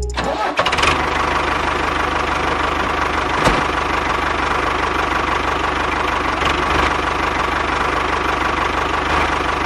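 Motor running steadily, with a fast even chugging and a constant whine, and a single sharp click about three and a half seconds in.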